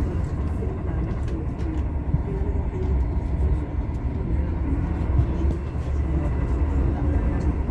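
Steady low rumble of a moving vehicle, with faint voices underneath.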